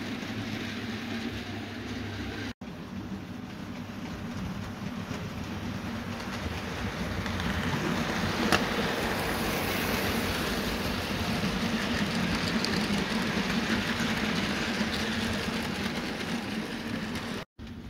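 Bachmann OO gauge model of a GWR Hall class steam locomotive running with a train of goods vans: a steady whirr and rumble of motor and wheels on the track, growing louder as the train comes close, with one sharp click a little past the middle. The sound cuts out briefly twice, once near the start and once near the end.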